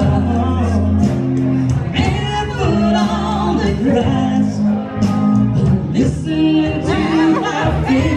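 A song with singing over held bass notes.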